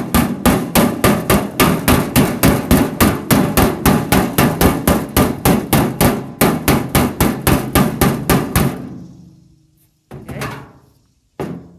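Hammer blows on a 2x4 block set against a truck tool box's metal panel to knock down a high spot in a dent: a fast, even run of taps, about four or five a second, that dies away, then two single blows near the end.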